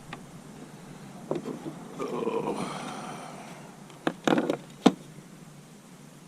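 A man's short drawn-out exclamation ("Oh"), then three or four sharp clicks or knocks over about a second, the last one the loudest.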